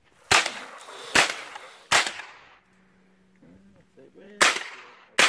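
Five single shots from a Smith & Wesson M&P 15-22 .22 LR semi-automatic rifle, each with a short echoing tail. Three come about a second apart, then there is a pause of about two and a half seconds before two more.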